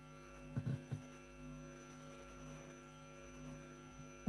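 Steady electrical mains hum, with a few brief faint blips about half a second to a second in.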